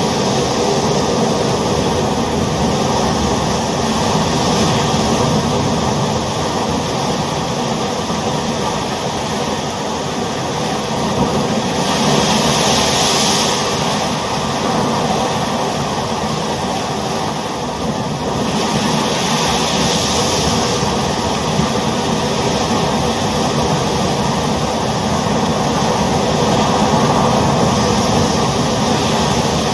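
Ocean surf: a continuous rush of waves, with louder, hissier breakers about twelve seconds in and again about nineteen seconds in.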